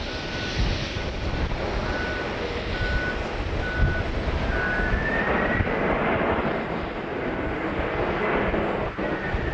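Boeing 767 jet engines running as the airliner rolls along the runway: a steady rushing noise with a high whine that comes and goes in short repeats at first, rises in pitch about five seconds in, and starts falling again near the end.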